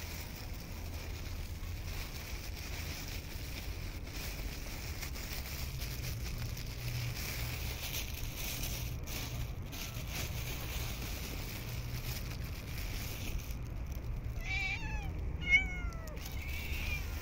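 Cats meowing a few short times near the end, over a steady low rumble.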